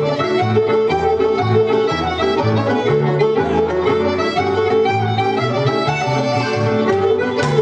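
Recorded American folk dance music, a jig tune playing with a steady beat.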